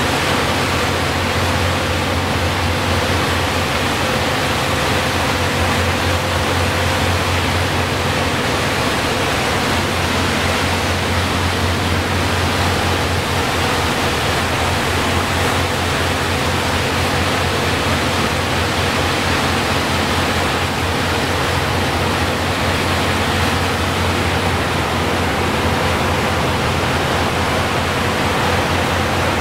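Steady rushing noise on the open deck of a moving ferry: churning wake and wind, over a low steady drone from the ship's engines.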